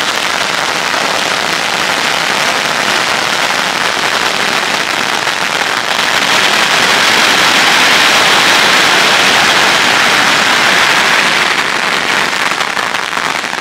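Three packs of firecracker strings going off at once: hundreds of small bangs merge into one dense, continuous crackle that swells to its loudest midway and eases off near the end.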